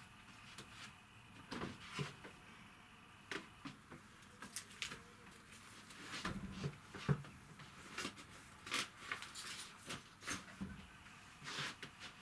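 Someone moving about and handling things in a small boat cabin: scattered light knocks and clicks at irregular intervals, the loudest a sharp knock about seven seconds in.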